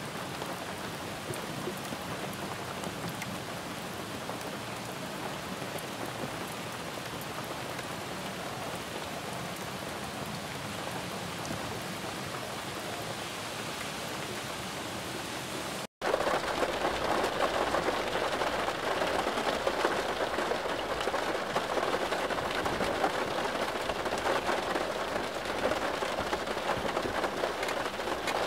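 Steady rain falling. About halfway through it cuts out for an instant, and a louder, heavier downpour follows.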